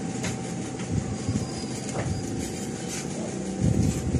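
Steady mechanical rumble with a constant hum, broken by a few faint light clicks.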